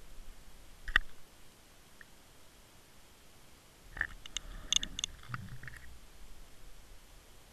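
Sharp clicks and knocks picked up inside a Water Wolf underwater fishing camera's housing as it hangs and spins on the line: one click about a second in, then a cluster of clicks and knocks from about four to five and a half seconds in, over a low steady hiss.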